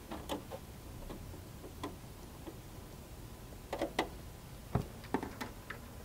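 Screwdriver turning the power-supply anchoring screws into the back of a steel PC case: scattered light metal clicks and taps, several close together around the middle and a sharper knock just before the five-second mark.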